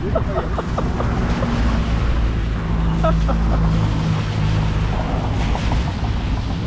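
Road traffic with a motor vehicle engine's low steady hum, clearest in the middle of the stretch, and a light hiss over it.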